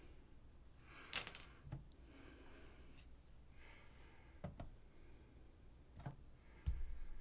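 Clay and tools being handled on a plaster bench: a sharp clink about a second in, then a few scattered light taps and knocks, and a dull thump near the end as a lump of clay is set down on a digital scale.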